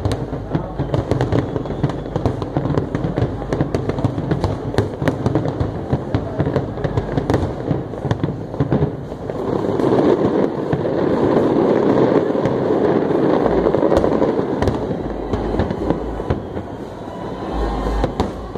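Fireworks display: a continuous run of crackling bursts and bangs. Around the middle it swells into a dense, louder rush of crackle, then eases off near the end.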